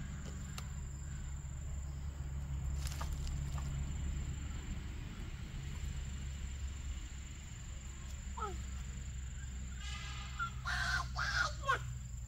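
Outdoor forest ambience: a steady high insect drone over a low rumble, with a faint short call partway through and a few short, harsh animal calls near the end.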